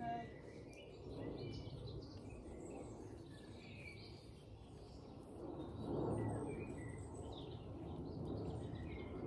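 Birds chirping over a steady low rushing background noise, which swells louder about six seconds in.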